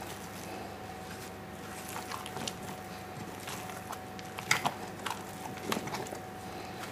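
A utensil stirring thick muffin batter with chopped Toblerone in a stainless steel bowl: irregular scrapes and clicks against the metal, the loudest about four and a half seconds in, over a faint steady hum.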